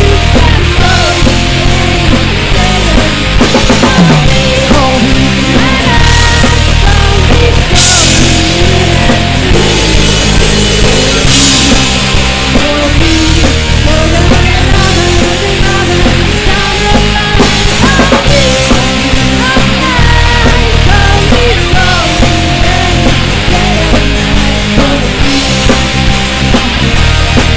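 Loud rock song played by a full band: drums with cymbal crashes, bass and electric guitar, with a crash about eight seconds in and another a few seconds later.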